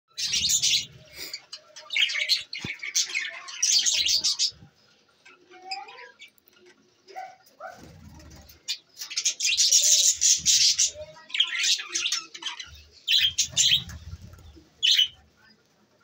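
A flock of budgerigars chirping and chattering in loud, busy bursts with quieter gaps between, and wings flapping as birds fly between perches.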